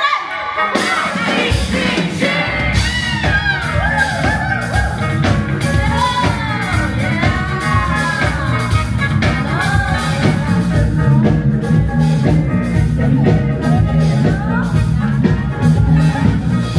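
A pop-rock song: a singer's voice over a band with a steady drum beat.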